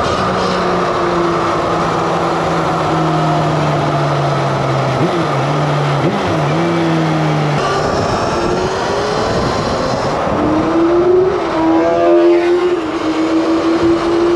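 A motorbike riding, with a steady rushing noise underneath; its running tone steps down in pitch about halfway through, fades briefly, then comes back and rises.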